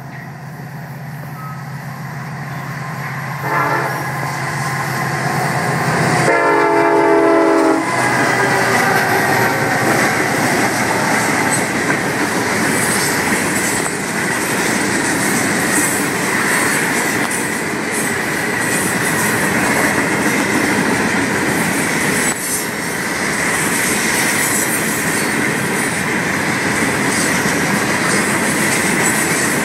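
Florida East Coast freight train: the locomotive horn sounds briefly about three and a half seconds in, then a louder, longer blast about six seconds in. Then the locomotives and a long string of loaded hopper cars roll past with a steady rumble of wheels on the rails and clickety-clack.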